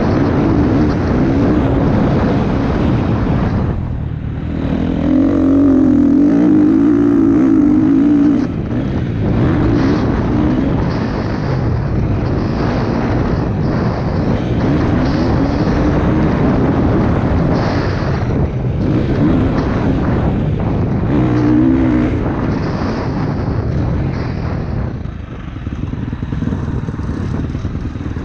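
Motocross bike engine running hard, its pitch rising and falling as the throttle is worked, loudest about five to eight seconds in.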